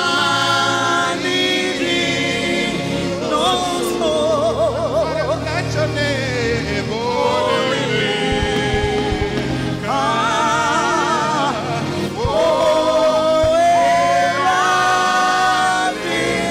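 Gospel worship song sung in Twi: a male lead singer with backing voices singing along, over a sustained musical accompaniment.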